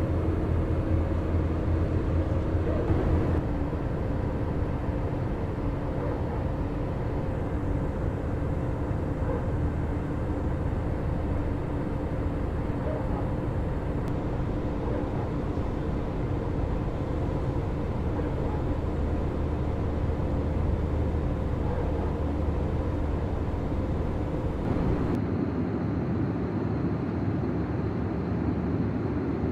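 Airbus A320 cabin noise in flight: a steady drone of engines and airflow with a few steady low hum tones, changing abruptly in character twice, about three seconds in and near the end.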